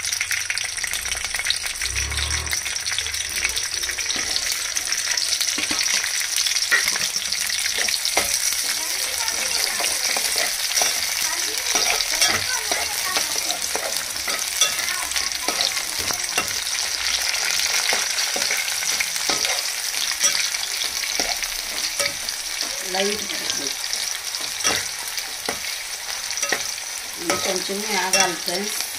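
Sliced onions and green chillies sizzling steadily in hot oil in a metal pot, with a metal spoon clicking and scraping against the pot as they are stirred.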